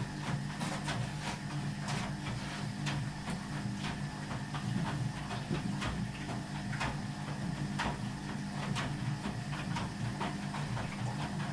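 Ardo washing machine running: a steady low hum with irregular light clicks and knocks.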